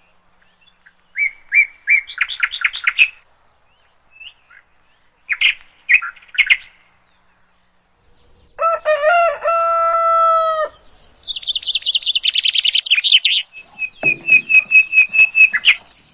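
Small birds chirping on and off. About nine seconds in, a rooster crows once, a long call of about two seconds that drops in pitch at the end. It is followed by fast runs of repeated high bird notes.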